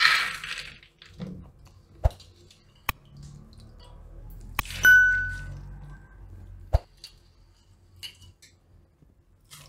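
Handfuls of soaked pigeon peas dropped into a pressure cooker pot, with a wet rattle in the first second. Then come a few sharp clicks and a single ringing ding about five seconds in: the click-and-bell sound effects of an on-screen subscribe-button animation.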